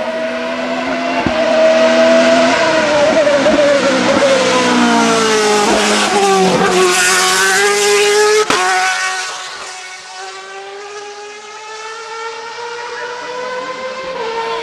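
Hillclimb racing car's high-revving engine approaching and passing, its pitch sliding down and back up through gear changes, with a sharp crack about eight and a half seconds in. After that the note drops away as the car pulls off up the road.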